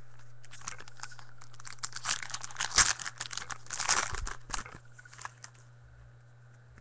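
Rustling and crinkling of trading cards and their packaging being handled: a dense flurry of small scrapes and clicks that peaks in the middle and dies away after about five seconds.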